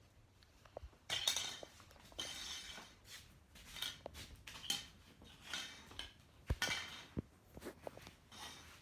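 Small hard objects being handled and knocked together: irregular clinks and taps mixed with short rustling scrapes.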